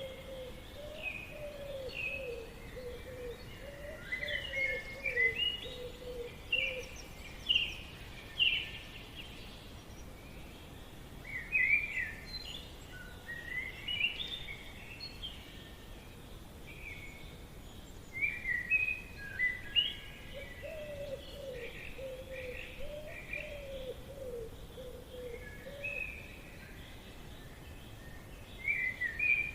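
Forest birdsong: several birds chirping and twittering in short phrases, with a lower warbling call heard in two spells, over a steady faint background hiss.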